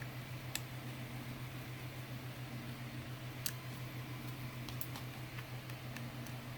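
A few faint, sharp clicks of a small screwdriver and tiny screws against a Joy-Con's plastic shell as the back-cover screws are driven in, over a steady low hum.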